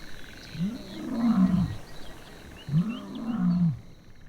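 Lion roaring: two long moaning calls that rise and then fall in pitch, about two seconds apart.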